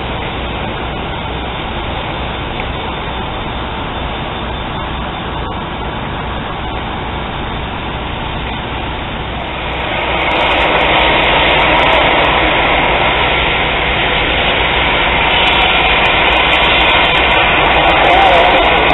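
Fire apparatus diesel engines running steadily with a low drone, pumping water to the hose lines. About ten seconds in the sound turns louder, with a wide rushing hiss over the engine drone.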